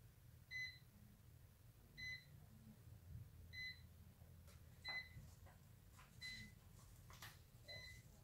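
A short electronic beep from a toy quadcopter's radio-control set, repeating evenly six times at about one and a half second intervals. A few faint clicks come in the second half.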